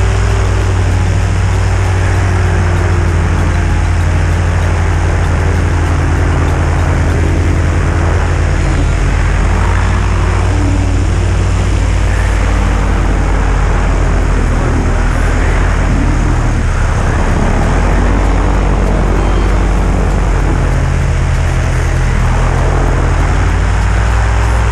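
EOS 150 two-stroke paramotor engine running steadily at cruise in flight, with wind rushing over the microphone.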